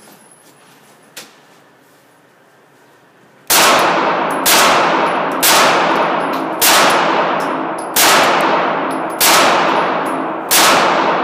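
Handgun fired seven times at roughly one-second intervals, starting about three and a half seconds in, each shot followed by a long echo off the indoor range's walls.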